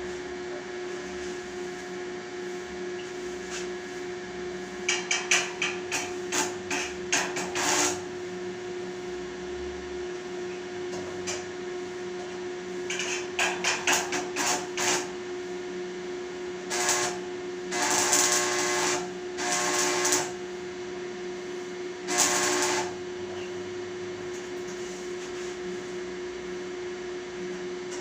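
Electric welding machine humming steadily, with several short bursts of arc-welding crackle and clusters of sharp taps on metal.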